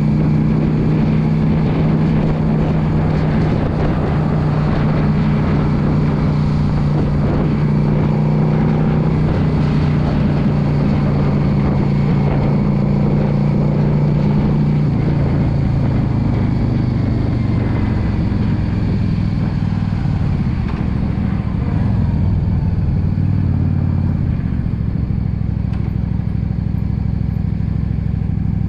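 The air-cooled V-twin of a 2016 Yamaha V Star 650 Custom running steadily at cruising speed. About halfway through, the engine note falls as the bike slows, then holds at a lower, steady note.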